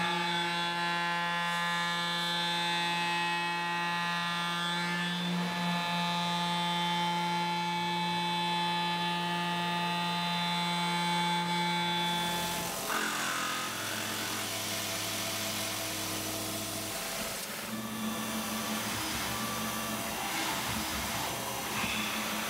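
Tormach 770 CNC milling machine spindle cutting aluminum, a steady pitched whine with a ladder of overtones. About 13 seconds in the pitch changes to a different, lower set of steady tones as the machine changes speed or moves to another cut.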